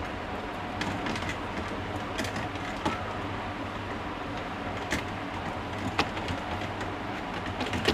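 Scattered light clicks and taps of a screwdriver and wires on plastic switch and regulator fittings, over a steady background hum.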